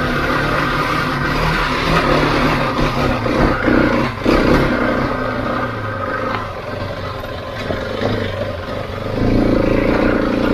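Husqvarna 701 motorcycle's big single-cylinder engine running under load, the throttle rising and falling as it works along a loose trail, with a sharp knock about four seconds in.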